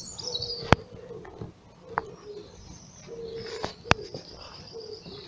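A dove cooing in low, repeated hoots, with faint higher bird chirps. Two sharp clicks come through loudest, one just under a second in and one about four seconds in.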